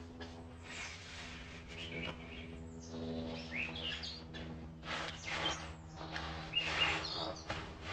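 Wild birds chirping loudly in repeated short calls, over a steady low hum and several bursts of a rushing noise, the strongest about five seconds in.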